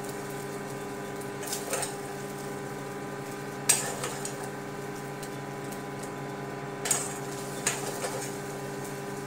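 Metal spatula clinking and scraping against a frying pan as fried rice is worked in it, with a handful of sharp knocks, the loudest a little under four seconds in. A steady hum runs underneath.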